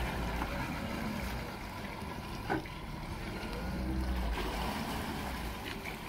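Yamaha XTO 425 V8 outboard running at low speed under joystick control, a low rumble with the prop wash churning the water, swelling around four seconds in. A short sharp click sounds about two and a half seconds in.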